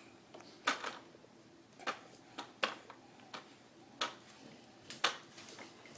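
Irregular soft clicks and smacks, about eight in all, from a baby mouthing and handling a teether.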